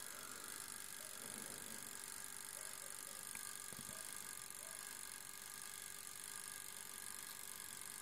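Faint steady hum of a toaster oven running with its top and bottom heating elements on.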